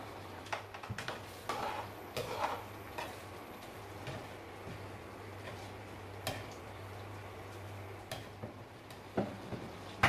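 Scattered clinks and taps of a slotted metal spoon against a nonstick wok while stirring and lifting broth, with a glass sauce bottle handled and set down. Under them runs a steady low hum from the induction cooktop.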